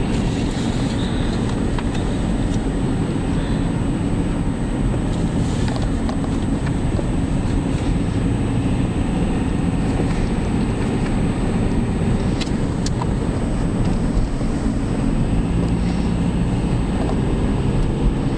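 Steady low rumble of engine and tyre noise heard from inside a moving car.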